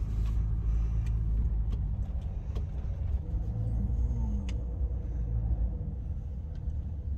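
Van driving slowly, heard from inside the cab: a steady low road rumble with scattered short ticks from the tyres on a gravel road.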